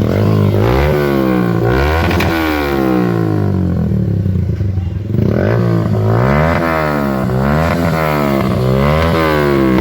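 Yamaha YBR125G's single-cylinder four-stroke engine revved again and again through an aftermarket Akrapovic-style exhaust silencer, its pitch rising and falling with each blip of the throttle.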